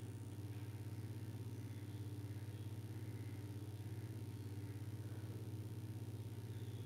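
Sewing machine running steadily, its needle stitching with a fast, even rhythm over a low hum.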